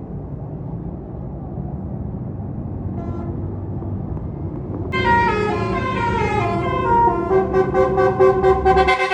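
A bus engine running as the bus passes, then about five seconds in a Basuri telolet musical horn plays a tune: several tones together in a falling run of notes, then quick repeated notes.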